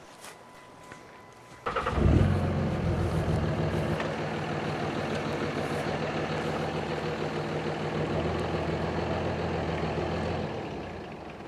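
An engine starts suddenly about two seconds in and runs steadily at one even pitch, then dies away near the end.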